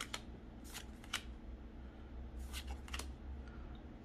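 Pokémon trading cards slid one at a time off the front of a small hand-held stack to the back, each making a short papery swish, about five times.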